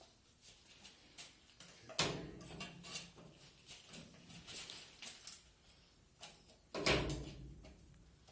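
Scattered light clicks and handling noises, with two louder knocks, one about two seconds in and one near the end.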